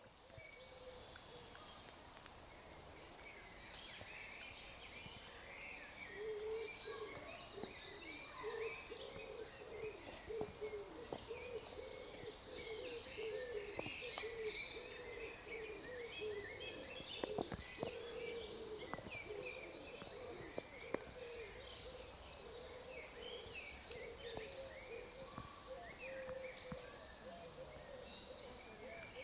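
Faint woodland birdsong: many small birds chirping and singing at once, with a lower warbling call repeating through most of it. A few brief clicks come about halfway through.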